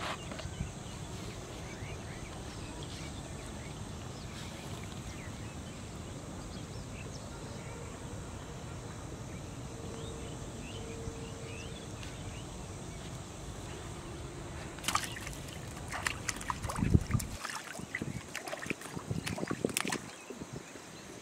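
Steady low background noise, then from about fifteen seconds in a flurry of splashes and knocks as a small fish is hooked on a pole line and pulled thrashing out of shallow canal water.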